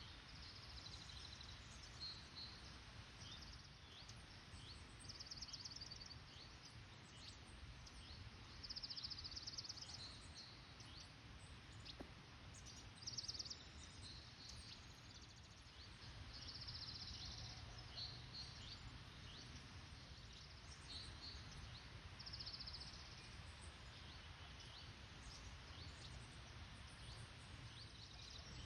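Faint forest birdsong: a short high trill repeated every few seconds among scattered thin high chirps, over a faint low rumble.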